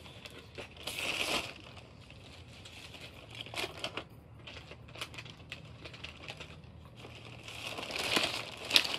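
Thin plastic shopping bag crinkling in short bursts as items are rummaged for and pulled out, loudest near the end with a sharp crackle.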